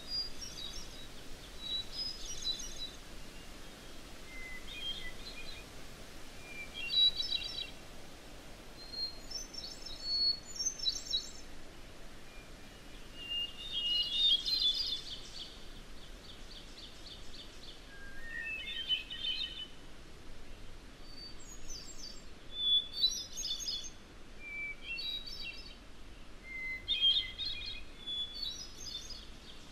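Field recording of songbirds singing, with short phrases of chirps and trills every second or two and a longer buzzy trill about halfway through, over a faint steady hiss.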